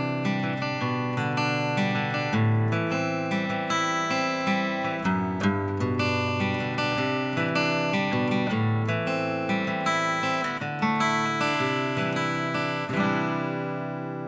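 Music: a steady acoustic guitar intro, plucked and strummed, before a song's vocals begin.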